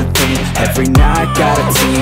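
Background music: an electronic hip-hop backing track with a steady beat and deep bass notes that slide downward.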